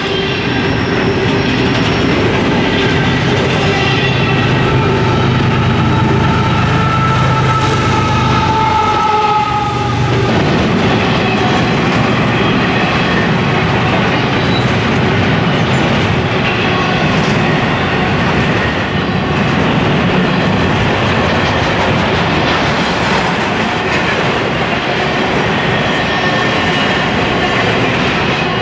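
Double-stack intermodal freight train rolling past: a steady rumble of wheels on rail with clickety-clack over the rail joints. A steady whine runs under it and cuts off abruptly about ten seconds in.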